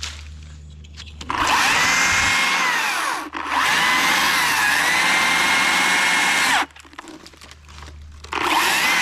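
Chainsaw revved to full throttle three times, holding high speed for a few seconds each time and dropping back to a low idle in between.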